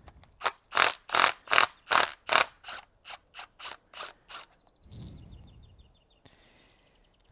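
Cordless impact gun hammering in about a dozen short bursts as it undoes the top cap of a Suzuki DR650 front fork. The bursts are loudest at first and grow weaker after about two and a half seconds. A fainter whirr and a dull low thud follow near the end.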